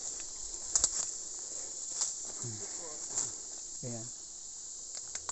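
Steady high-pitched chirring of insects in tropical forest, with a few sharp clicks and rustles of footsteps on dry leaf litter.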